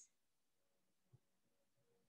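Near silence: faint room tone in a pause between spoken relaxation cues.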